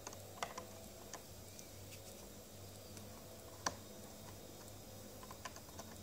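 Faint handling sounds: a few scattered light clicks and taps as the plastic applicator tip of a UV liquid-plastic repair pen and the clear plastic part are handled, one sharper click a little after halfway and several close together near the end, over a low steady hum.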